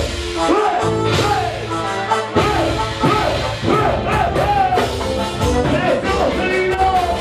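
Live band music: a drum kit and bass under a lead melody that bends and slides in pitch. The bass and drums drop out briefly and come back in about two and a half seconds in.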